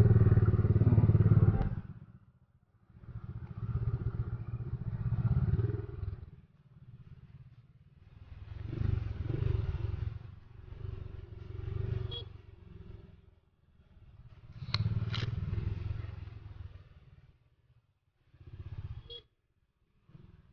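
Honda XRM single-cylinder four-stroke motorcycle engine running while riding down a narrow path. It comes and goes in bursts of a second or two, loudest at the start and falling almost to nothing between bursts, with a few sharp ticks and rattles around the middle and near the end.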